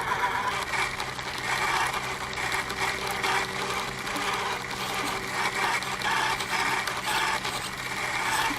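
Vanquish H10 1/10-scale RC crawler driving: its small electric motor and geartrain hum and whine steadily while the tyres crackle and crunch over desert gravel and dirt.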